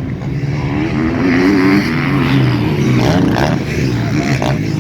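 Motocross bike engines revving hard, the pitch climbing and dropping as the riders work the throttle through the track.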